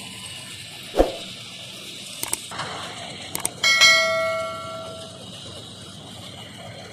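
Subscribe-button animation sound effect: a thump about a second in, a few mouse clicks, then a notification-bell ding that rings and fades over about a second. Underneath is a steady hum of farm machinery, the combine harvester running.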